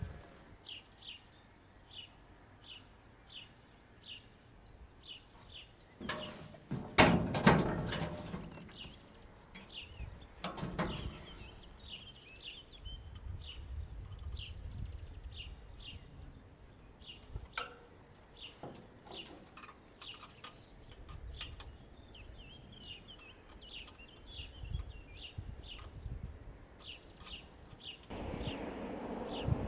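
A bird chirping over and over, short high chirps about twice a second. A clatter of knocks about seven seconds in and again around eleven seconds are the loudest sounds.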